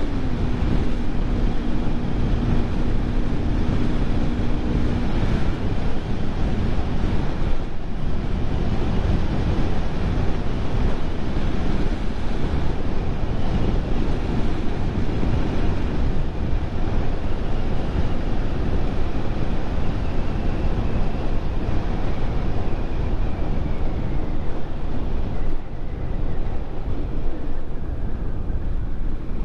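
Wind rushing over the microphone of a moving motorcycle, a Bajaj Pulsar NS 200. The single-cylinder engine's steady note shows through for the first few seconds, then is covered by the wind.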